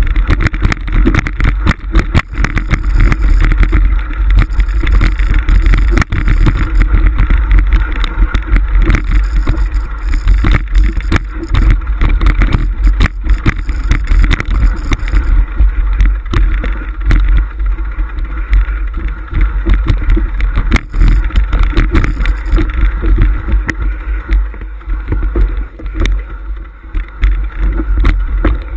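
Mountain bike riding over a loose, rocky trail: a loud, constant low rumble of wind on the bike-mounted action camera's microphone, with a dense irregular rattle and knocking of the bike and camera mount over the stones.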